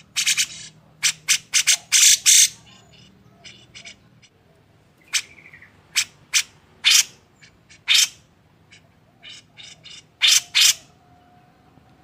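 Cucak jenggot (grey-cheeked bulbul) giving short, harsh calls. A quick run of several comes in the first two and a half seconds, then single calls about a second apart, and a closing pair near the end.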